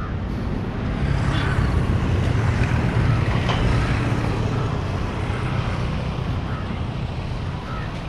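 Street traffic: a motor vehicle passes close by. Its engine hum swells about a second in and fades after about four seconds, over a steady wash of road noise.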